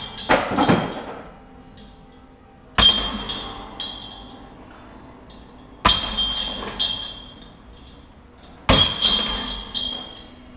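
Putting discs hitting the hanging chains of a Huk Lab Chain Rain disc golf basket, once every three seconds or so. Each hit is a loud metallic jangle of chains that rings on and fades with a few smaller clinks as the disc settles.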